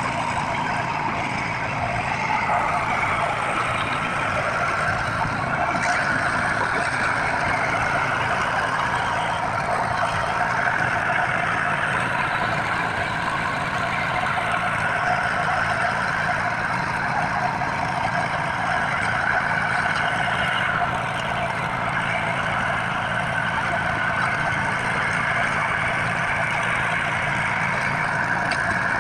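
Heavy diesel construction machinery running steadily, a continuous engine drone with no breaks.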